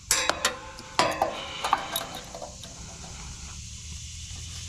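Adjustable wrench clinking against a nut and the metal hub of an air-conditioner condenser's fan guard as it is fitted and turned. There are several sharp metallic clinks, each with a short ring, in the first two seconds, then only quieter scraping.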